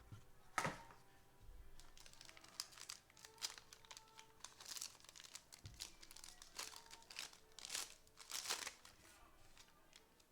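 Foil wrapper of a trading-card pack crinkling as it is torn open and handled, with a sharp crackle about half a second in.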